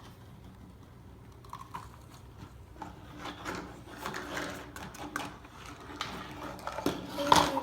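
Scraping and crunching of baking soda being handled with a measuring cup and tipped into a jar, with small knocks of cup and jar, and a louder knock near the end.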